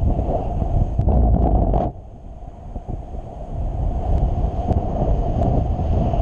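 Airflow rushing and buffeting over a paraglider's harness-mounted camera microphone in flight. It dips about two seconds in, then picks up again.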